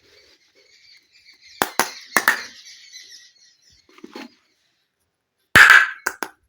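Small plastic toy-kitchen pieces being handled: a few sharp clicks and taps about a second and a half in, light rustling, then a louder clatter near the end followed by two quick clicks.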